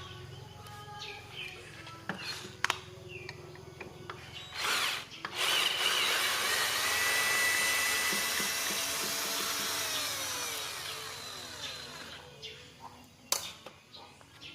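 A small electric power tool starts about five seconds in, runs steadily for about five seconds, then winds down with falling pitch and stops.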